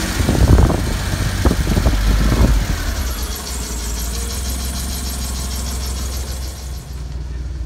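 1992 Mitsubishi Minicab truck's small three-cylinder engine idling steadily, heard close up in the engine bay. A few loud irregular thumps come in the first two and a half seconds.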